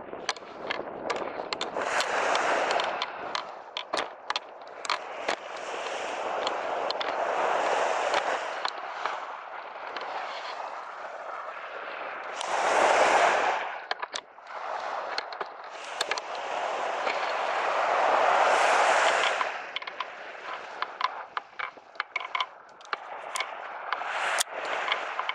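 Small waves breaking and washing up on a sandy beach, the surf swelling and fading about every five seconds, with frequent sharp crackling clicks over it.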